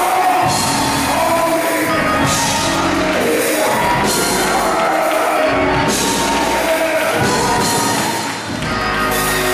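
Live gospel music: singing over a band with drums and keyboard, at a steady loud level.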